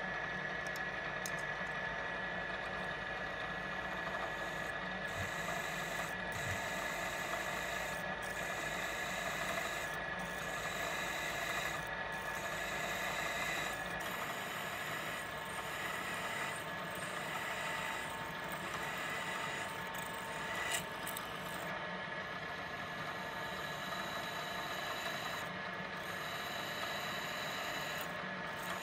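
Milling machine running with a steady whine while a drill bit cuts into a steel plate.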